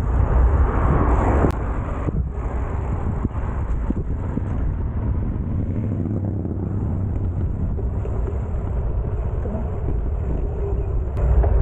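Steady outdoor road noise while riding: a low rumble of traffic and wind, a little louder for the first second and a half, then even.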